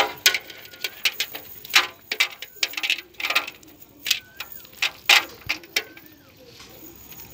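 Live shrimp flicking and jumping in a nylon cast net over a basin as the net is worked by hand, making irregular sharp clicks and crackles.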